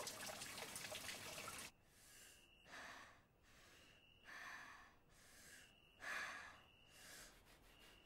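Faint, heavy breathing, in and out, about one breath every second and a half, after a soft hiss of background noise that stops a little under two seconds in.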